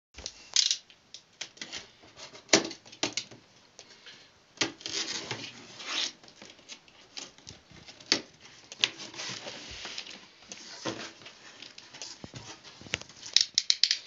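Cardboard box being opened by hand: flaps and paper rustling and scraping against the cardboard, with irregular sharp knocks and taps, several in quick succession near the end.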